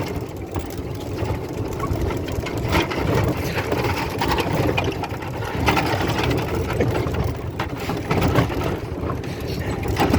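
Golf cart driving over rough ground: a steady running rumble with occasional knocks and rattles as it goes over bumps.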